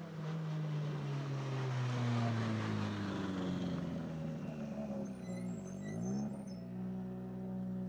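A car driving past close by, its engine note falling steadily over about four seconds as it goes away. A quick dip and rise in revs follows, over a steady engine hum.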